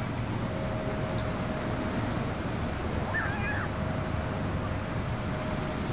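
Steady rushing noise of riding along a beachfront path: wind on the microphone and surf breaking, with a faint hum that comes and goes and a brief high chirp about three seconds in.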